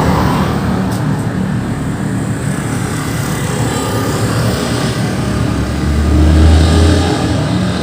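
Intercity bus with a snoring exhaust passing: a deep, throaty engine rumble that swells to its loudest about six seconds in.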